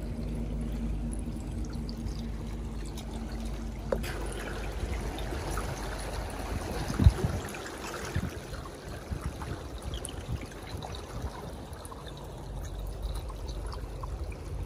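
Water splashing and sloshing at the surface close to the bank as a hooked fish thrashes, with one loud splash about seven seconds in. Before the splashing starts, a steady low hum runs and cuts off about four seconds in.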